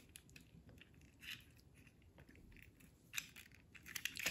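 Small plastic toy parts being handled and fitted together: faint light clicks and rustles as the seat pieces of a toy stroller are pushed into its frame, with a few sharper clicks near the end.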